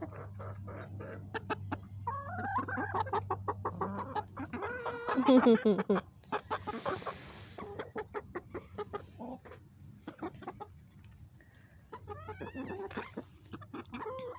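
Hens clucking while feeding, over a run of quick ticks of beaks pecking grain. The loudest call, falling in pitch, comes about five seconds in, with more clucking near the end.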